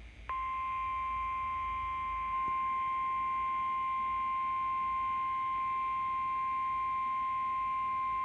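NOAA Weather Radio warning alarm tone: a single steady high tone at about 1050 Hz that starts just after the beginning and holds without change. It signals that a warning message is about to be broadcast.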